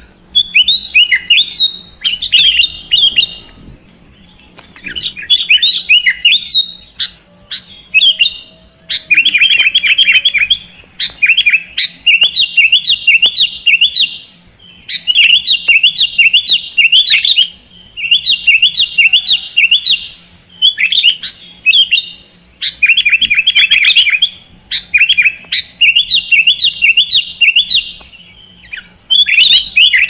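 Sooty-headed bulbul (kutilang) singing in fast, loud chattering phrases, each a second or two long, repeated with short pauses between them.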